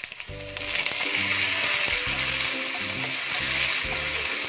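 Curry leaves sizzling and spluttering in hot coconut oil with fried coconut slivers as they are stirred in. The sizzle jumps sharply about half a second in and holds, over background music.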